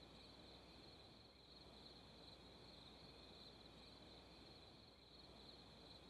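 Faint, steady chorus of night insects, a continuous high-pitched trill.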